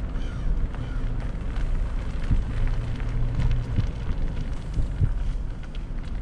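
Low rumbling and crackling of wind buffeting the microphone at an open car window.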